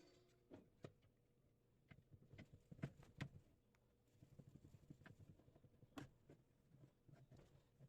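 Faint, scattered clicks and knocks of tools and parts being handled during washing machine repair, the loudest about three seconds in and again about six seconds in, over a faint low hum.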